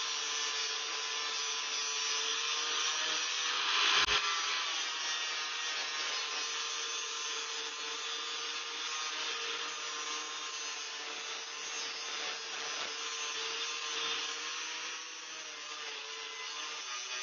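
Angle grinder running with its disc grinding the bevel into a steel blade: a steady motor whine under the hiss of abrasive on steel. It grows briefly louder, with a sharp click, about four seconds in.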